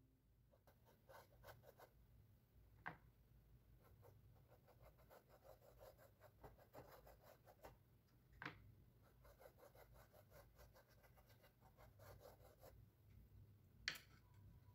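Faint scratchy strokes of a thin paintbrush on a stretched canvas, with three soft taps spread through.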